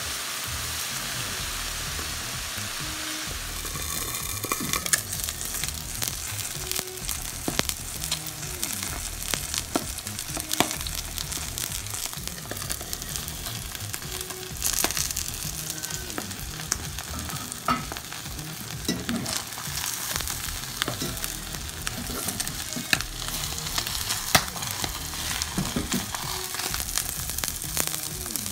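Food frying in hot oil in a cast-iron pan: first sautéed vegetables, then a butterflied milkfish. There is a steady sizzle, and from about four seconds in, frequent sharp pops of spattering oil.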